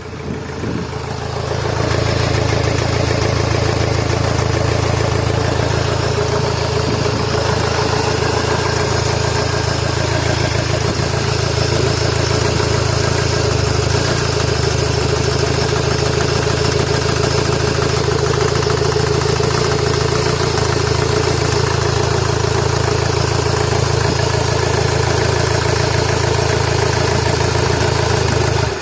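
Honda Accord 2.2 i-CTDi four-cylinder diesel engine running steadily after rising in speed over the first couple of seconds. The engine runs badly after a turbo failure and is blowing blue smoke, which the owner thinks could mean a cracked piston.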